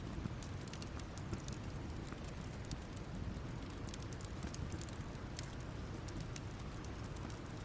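Campfire burned down to embers, crackling with irregular sharp pops and ticks over a low, steady rush.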